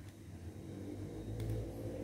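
Small motor of a USB-powered mini travel fan starting up about a second in and running with a low, steady whir, with a light click of the plug and handling near the middle.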